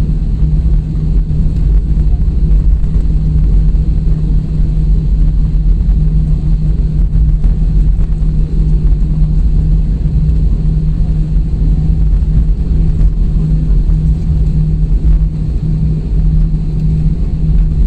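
Cabin noise of an Airbus A320-family airliner rolling down the runway after touchdown: a loud, steady low rumble from the wing-mounted engine and the wheels on the runway, with a constant low hum.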